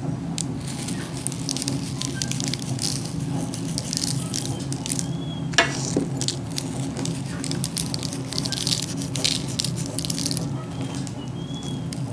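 Poppy seeds sprinkled by hand onto braided yeast-dough buns, a light pattering of many small ticks, with one sharper click about halfway through, over a steady low hum.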